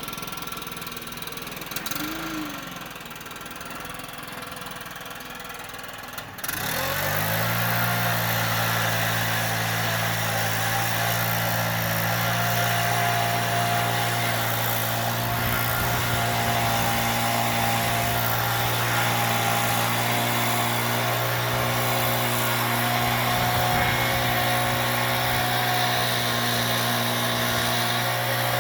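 An engine starts about six seconds in, spins up quickly, and settles into a steady idle.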